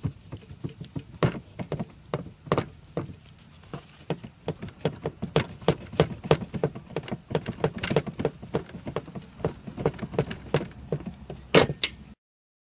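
Windshield wiper arm being wiggled hard to work it loose from its shaft: a long run of irregular knocks and clatters, several a second, with a few louder knocks, the loudest near the end.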